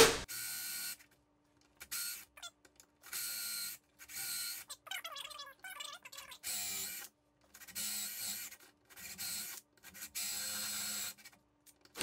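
Ryobi cordless drill driving a 1-inch bi-metal hole saw into a door edge in a string of short bursts with silent gaps, the pitch rising in one burst about halfway through. Sawdust packing the hole saw's teeth makes it bind, so the drill is run in stops and starts.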